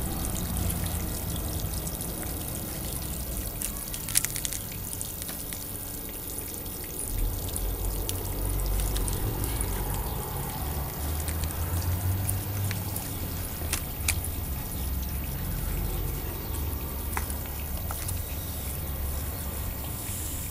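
Steady trickling of water from a garden pond, under a patchy low rumble, with a few sharp clicks.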